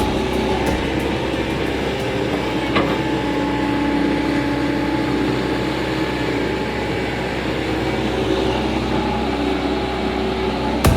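Hydraulic excavator's diesel engine running steadily, with a single sharp knock about three seconds in.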